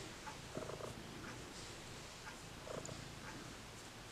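Domestic cat purring faintly while being stroked.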